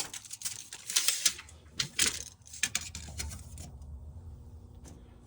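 Handling while measuring a wooden axe handle: a run of sharp clicks and rattles over the first three and a half seconds, then only a faint low hum.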